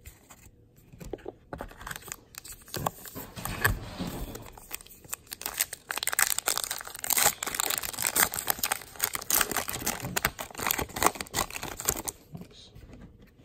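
A trading-card pack's wrapper crinkling and tearing as it is ripped open by hand. The irregular crackle builds up over the first few seconds, is loudest in the second half, and stops shortly before the end.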